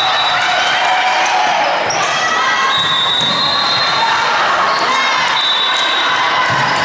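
Volleyball rally in a gym: sneakers squeaking on the sport-court floor in short held squeals, sharp slaps of the ball being played, over players' and spectators' voices.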